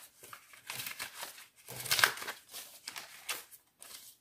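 Paper dollar bills rustling and crinkling as they are handled and folded, in a series of short irregular rustles, the loudest about two seconds in.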